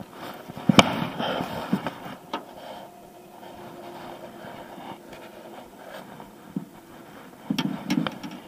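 Clicks and knocks of rod, baitcasting reel and line being handled in an aluminum jon boat as a crappie is reeled up and lifted aboard. There is a sharp knock about a second in and a cluster of dull thumps near the end.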